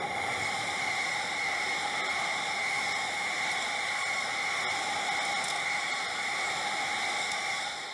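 Electric commuter train passing close by at speed: a steady rush of wheel-on-rail noise with a high-pitched ring running through it, dying away near the end.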